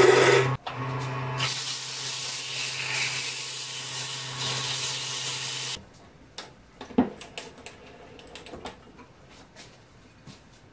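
Wood lathe running with sandpaper hissing against the spinning wooden handle over a steady motor hum. The lathe stops abruptly about six seconds in, followed by a few light clicks and knocks as the handle is taken off the lathe.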